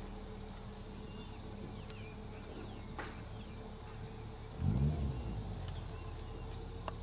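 Car engine idling steadily, revved once briefly about four and a half seconds in, the pitch rising and falling.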